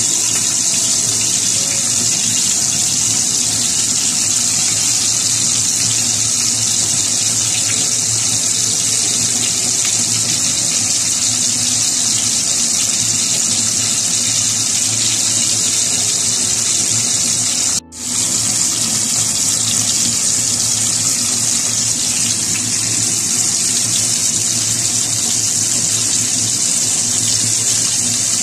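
Hot oil sizzling steadily around a whole masala-coated fish shallow-frying in a pan: an even, bright hiss, with a brief break about two-thirds of the way through.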